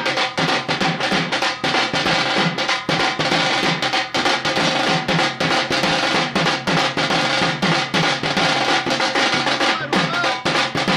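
Drum-heavy music with fast, steady drum strokes over a sustained backing.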